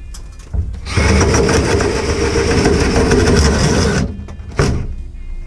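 Cordless drill running steadily under load, boring into the old wooden wall framing; it starts about a second in and stops about three seconds later.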